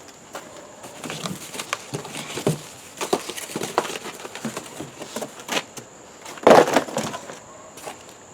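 Rustling, clicks and knocks of mower parts being handled and unpacked from the box, with a louder burst of handling noise about six and a half seconds in.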